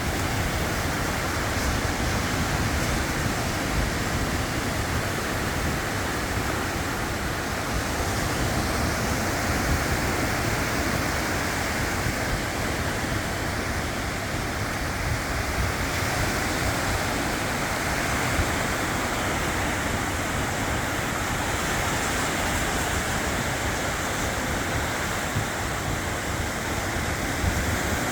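Strong wind buffeting the microphone over the sound of sea surf: a steady, unbroken rushing noise.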